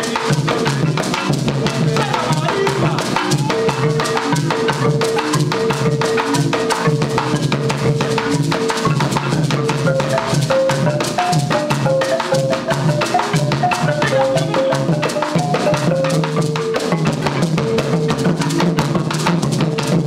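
Marimba esmeraldeña ensemble playing: a marimba melody over dense, driving bombo and cununo drumming, with guasá shakers.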